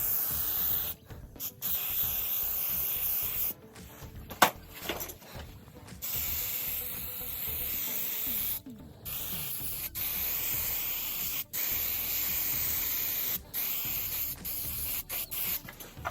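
Aerosol spray can spraying in hissing bursts of one to a few seconds, with short breaks between them. There is a sharp click about four seconds in.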